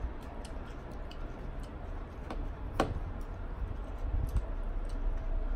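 Light clicks and taps of a metal fork against a glass salad bowl while eating, with one sharper click a little under three seconds in.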